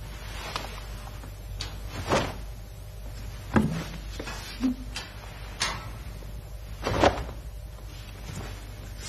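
Sharp snaps of a karate gi and bare feet striking the mat during the Sochin kata: several short strikes at irregular intervals, the strongest about three and a half and seven seconds in.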